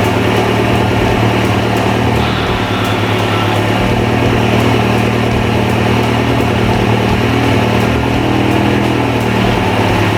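Car engine idling steadily, shortly after a cold start.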